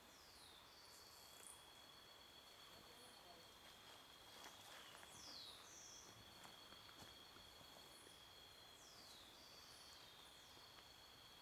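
Faint forest ambience: a steady high insect drone, with about five short high whistles falling in pitch scattered through it. The wood-quail themselves are not calling.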